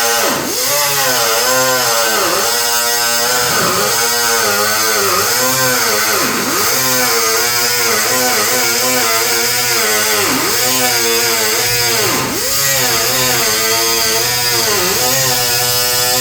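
Small cutoff wheel cutting sheet-metal hood panel, a steady high whine whose pitch drops each time the wheel bites into the metal and climbs back as it eases off, over and over.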